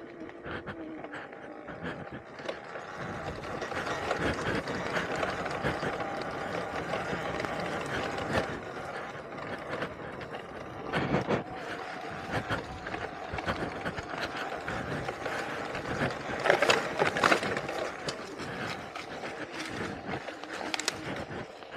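Talaria Sting R electric dirt bike riding over a rough trail: a steady motor whine under rattling and knocking from the chain, suspension and stones, with a few louder knocks halfway through and later on.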